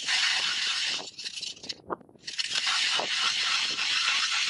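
Hand-cranked ice auger cutting into lake ice: its blades scrape and shave through the ice in a steady rasping hiss, broken by a short pause about two seconds in before the cranking goes on.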